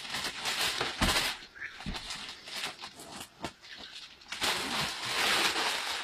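Gift wrapping paper rustling and tearing as a present is unwrapped, loudest in the last second and a half.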